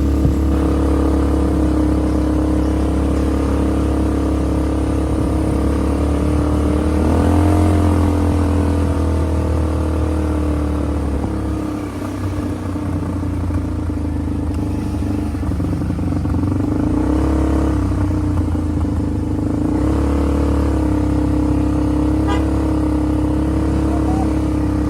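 Off-road vehicle engine running continuously under way. The revs rise briefly about seven seconds in, ease off around twelve seconds, then pick up again.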